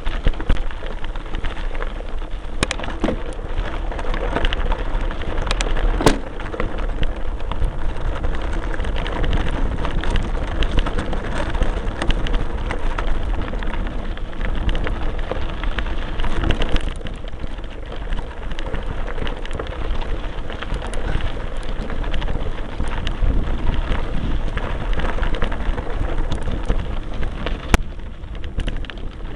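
Mountain bike rolling over a loose gravel track, heard from a front-mounted camera: a steady crackling rumble of tyres on stones and the bike rattling over the rough surface, with scattered sharp knocks over bumps.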